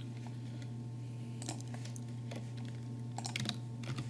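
Dead air on a broadcast receiver feed between emergency alerts: a low steady electrical hum under faint hiss, broken by a few scattered sharp clicks of static.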